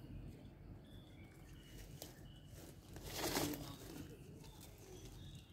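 Faint outdoor ambience with scattered short, high chirps, and a brief rush of noise that swells and fades a little past three seconds in.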